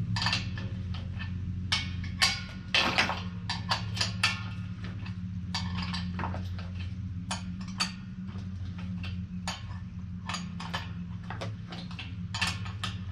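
Irregular metallic clicks and clinks of wrenches on the axle nuts as a wheel is tightened onto the air compressor's axle, over a steady low hum.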